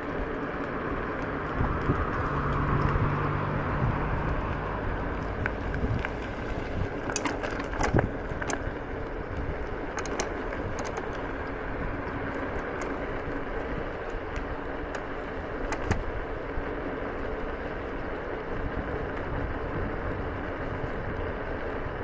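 Egret X electric scooter riding on gravel: a steady rolling rumble from the tyres, with scattered sharp clicks and knocks.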